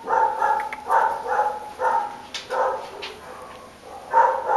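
A dog barking in a run of short, pitched barks, then a pause and one more bark near the end.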